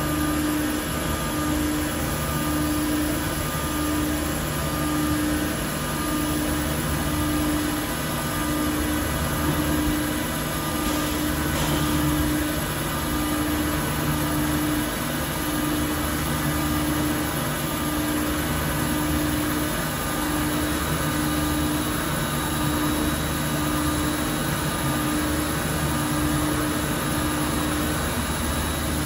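Haas CNC mill's 7/16-inch four-flute carbide roughing end mill cutting aluminum under flood coolant, circular interpolation opening up a hole. The cutting and coolant spray make a steady noise, with a low hum that pulses evenly a little over once a second.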